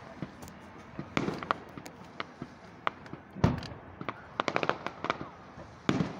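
Aerial fireworks going off: several separate bangs, the loudest about three and a half seconds in, and a quick run of sharp pops shortly after it.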